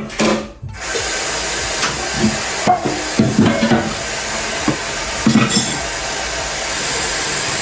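Food frying in a hot pan: a loud, steady sizzle that starts about a second in, with a few soft knocks over it.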